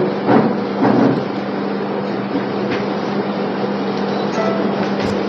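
A steady low hum over an even hiss, with a few short sounds in the first second.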